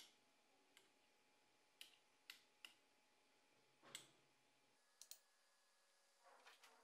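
Faint, irregular clicks of the Anet A8 3D printer's control-panel push buttons, pressed about eight times to scroll through the LCD menu.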